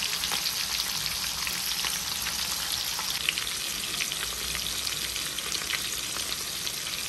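Food frying in a pan of hot oil: a steady sizzling hiss with many small crackles and pops.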